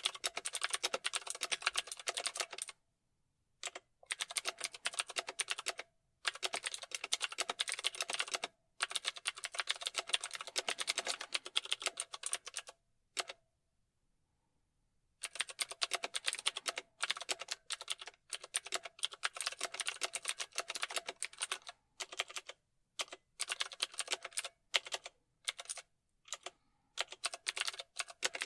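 Typing on a computer keyboard: runs of rapid keystrokes broken by short pauses, with a longer pause of about two seconds near the middle.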